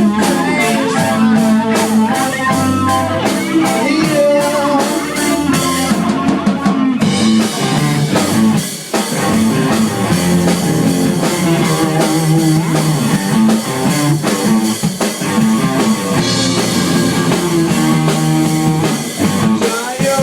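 A live rock band playing: electric guitar over a steady drum-kit beat.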